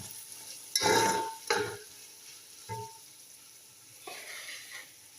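Onions, whole spices and ginger-garlic paste sizzling in hot oil in a karahi while being stirred with a spatula, with a couple of loud scrapes against the pan about a second in.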